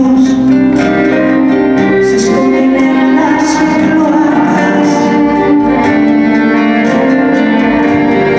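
A woman sings live into a microphone, holding long notes, accompanied by acoustic guitar and violin.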